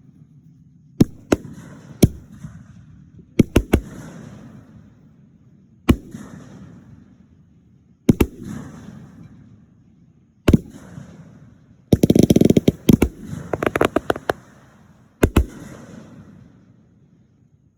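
Fireworks bursting: single and double sharp bangs every second or two, each followed by a rumbling echo that dies away. About twelve seconds in, a rapid run of crackling reports, then one last bang.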